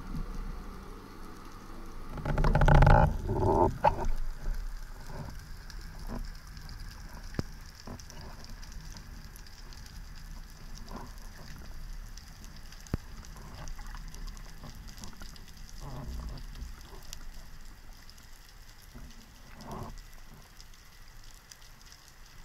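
Underwater ambience picked up through a camera housing: a steady crackle of fine clicks. A loud burst of rushing water and knocks about two seconds in.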